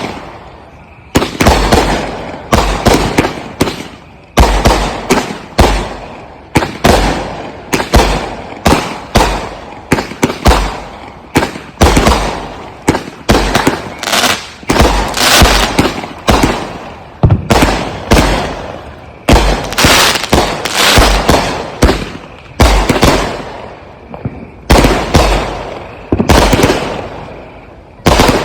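Consumer aerial firework cakes firing a continuous string of shots: sharp booms about one to two a second, each dying away before the next, with no pause.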